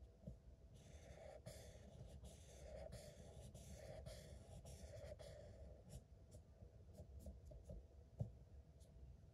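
A marker scribbling back and forth on paper, colouring in a shape in quick strokes, faint. About two-thirds of the way in, the long strokes give way to short separate dabs, with one louder tap near the end.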